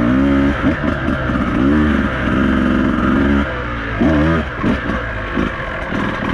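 Beta 200RR two-stroke enduro motorcycle engine revving up and down in repeated blips of the throttle, easing off briefly about halfway through and then revving up again.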